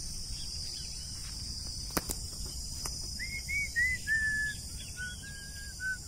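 A steady high chorus of crickets or similar insects over a low wind rumble on the microphone. From about three seconds in, a bird whistles a run of short notes that step down in pitch.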